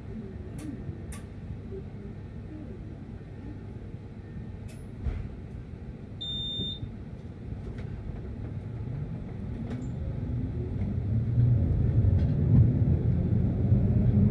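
Electric tram rumbling at low speed, with a short high beep about six seconds in. Then it pulls away, its traction motor whine rising in pitch and the rumble growing louder.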